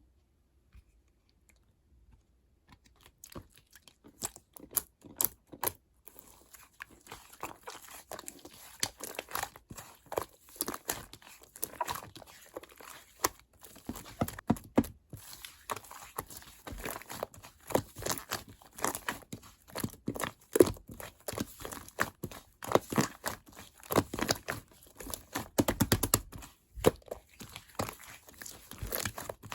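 Purple clear slime and white fluffy slime being squished and mixed by hand: a dense, irregular run of sticky clicks and pops, starting about three seconds in.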